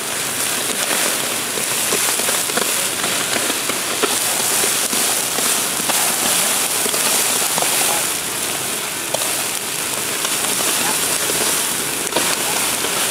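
Fuel-pan fires burning under two plastic totes: a steady hiss with scattered crackling.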